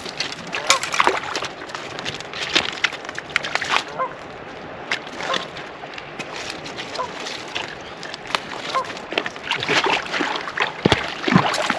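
River water sloshing and splashing in short, irregular bursts.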